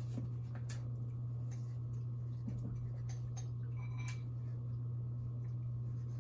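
A steady low hum with scattered soft clicks and taps of a utensil in a glass bowl of ramen noodles, and a short light clink against the glass about four seconds in.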